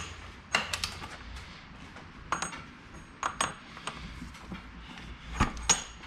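Metal wrench clinking and tapping against a bicycle axle nut: a few sharp, ringing clicks, several coming in quick pairs, about a second or two apart.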